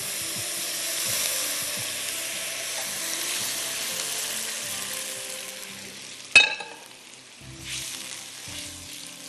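Chicken stock poured into a hot wok of sautéed chicken and mushrooms, sizzling loudly and dying down over several seconds. A single sharp knock a little over six seconds in, then a spatula stirring the liquid in the wok.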